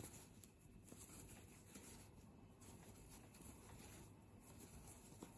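Near silence, with faint soft rustling and light ticks of a steel crochet hook pulling yarn through crocheted fabric.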